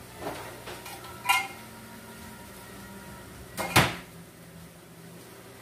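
Kitchen clatter: a few light clinks and taps in the first second and a half, one of them ringing like thin metal, as an emptied mushroom can is handled at the pan. Then a single loud, sharp knock nearly four seconds in.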